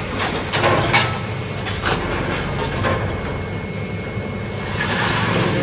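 Clanking and scraping of a large welded steel grill panel being handled and set down on a metal stand, with several sharp metal knocks in the first three seconds, the loudest about a second in. A steady low engine hum runs underneath.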